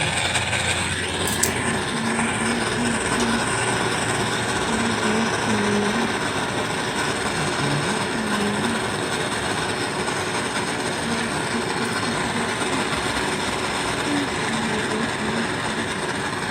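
A plumbing torch flame hissing steadily while it heats a copper pipe joint for soldering.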